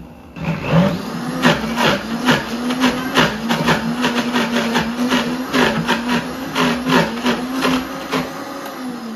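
Countertop blender starting up and running on medium speed, churning a thick mixture of cream cheese and sugar while the tamper is pushed down through the lid. The motor rises to a steady pitch a fraction of a second in, with irregular knocks throughout.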